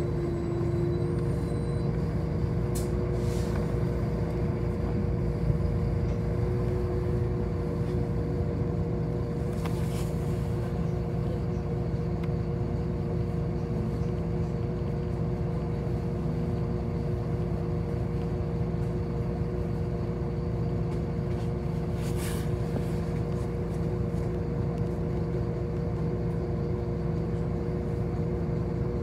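City bus driving, heard from inside the cabin: a steady low rumble with two steady whining tones, and short hisses twice, about a third of the way in and again about three quarters through.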